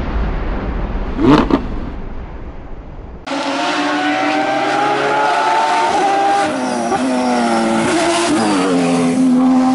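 A whooshing sound effect over a low rumble, with one quick rising sweep, then a sudden cut about a third of the way in to a Porsche 911 race car's engine running hard as it approaches. The engine's pitch sags slowly, then wavers and steps down near the end as the car slows for the bend.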